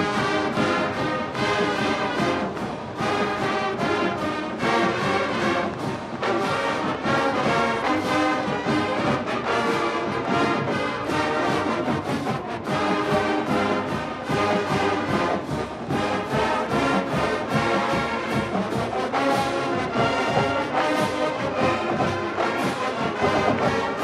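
College marching band playing full out: brass section holding loud sustained chords over a drumline striking steadily throughout.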